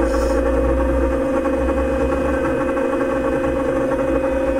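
Vibration platform (vibropod) running with a steady mechanical hum and a low rumble as it shakes a person's elbows resting on it.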